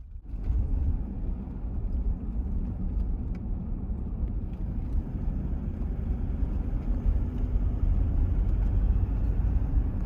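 Toyota Troopy driving along a road: a steady low rumble of engine and road noise.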